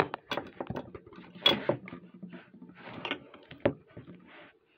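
Handling noise: a run of knocks, clicks and rustles as a handheld recording device is picked up and moved about, the sharpest knocks about a second and a half and three and a half seconds in.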